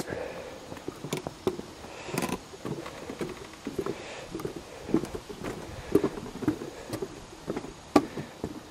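Footsteps on an old wooden boardwalk: feet thudding on the planks about twice a second, with small knocks and clicks from the loose boards.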